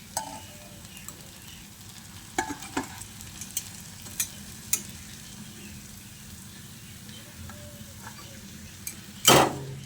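Batter-coated spiny gourds frying in mustard oil in a kadai, a steady sizzle with several light clicks of a utensil in the first half. A loud, brief rush of noise about nine seconds in.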